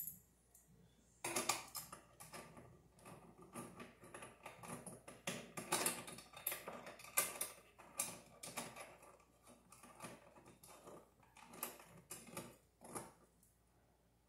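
Irregular light metallic clicks and rattles as an MC armoured-cable connector is worked into a steel junction box by hand. The clicks start about a second in and stop near the end.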